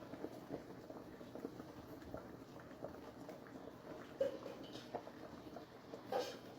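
A utensil stirring pasta and cheese in a pan: soft, irregular clicks and patter, with two louder knocks against the pan about four and six seconds in.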